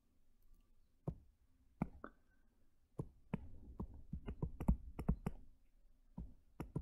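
Pen stylus tapping and clicking on a tablet screen during handwriting: irregular faint clicks, a few scattered ones at first, then a quicker run from about three seconds in.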